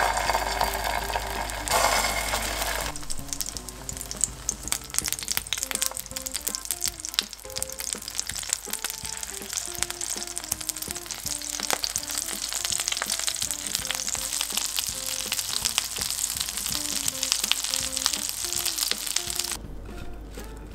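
Egg-battered oysters pan-frying in oil: a loud sizzle as pieces go into the hot oil right at the start and again about two seconds in, then a steady crackling sizzle with many small spattering pops, which stops near the end.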